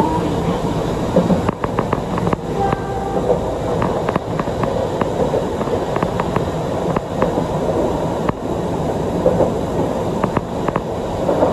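Chikuho Electric Railway 3000-series electric car running along the line, heard from inside the car: a steady rumble of wheels on rails with many irregular sharp clicks.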